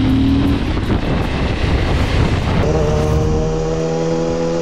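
Motorcycle riding at speed, with engine rumble and wind noise on the helmet-camera microphone. About two-thirds of the way through it cuts to another motorcycle's engine running at a steady pitch.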